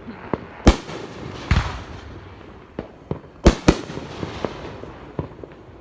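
Fireworks going off: several sharp booms, one about a second in, one a little later with a trailing rumble, and two close together around three and a half seconds, among many smaller pops and crackles.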